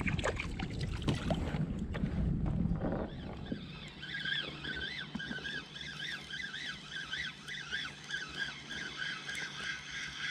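Water sloshing and knocks against the kayak, then from about four seconds in a spinning reel being cranked to retrieve line, its gears whirring in a rising-and-falling pattern about three times a second.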